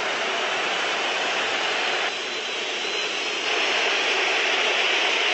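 Large football stadium crowd cheering a scored penalty in a shootout, a dense, steady roar. It drops back about two seconds in and swells up again a moment later.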